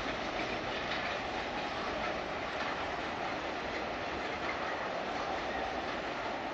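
Train wagons rolling past on the tracks: a steady rumble of steel wheels on rails with light clicking at the rail joints.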